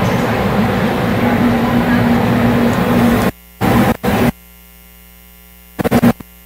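Background din of an open kitchen in a busy market, a steady wash of noise with a low hum. About three seconds in it cuts out abruptly to a faint steady hum, and the din breaks back in for a moment three times.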